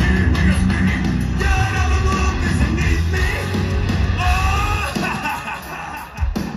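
Heavy metal band playing live, with distorted guitars, bass and drums under sung vocals. About five seconds in the heavy low end drops away, leaving a thinner, quieter passage near the end.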